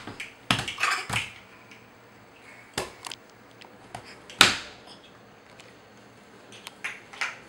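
A handful of short, sharp taps and knocks over a quiet room, the loudest about four and a half seconds in and a small cluster near the end.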